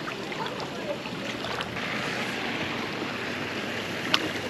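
Water in a lazy river sloshing and rushing around a camera carried along in the current: a steady splashy hiss with small ticks and one sharp click about four seconds in.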